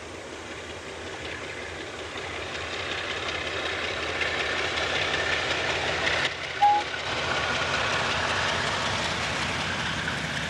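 Diesel-hauled passenger train running past, its sound growing steadily louder as it approaches. About two-thirds of the way through there is one short, high peep.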